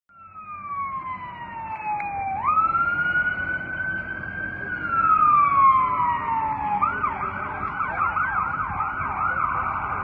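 A fire truck's electronic siren sounds a slow wail that falls, jumps back up and falls again. About seven seconds in it switches to a fast yelp of about three sweeps a second.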